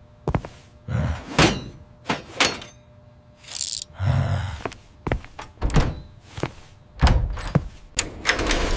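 A series of irregular thuds and knocks, about a dozen hard impacts, a few of them heavy and deep, in a small room.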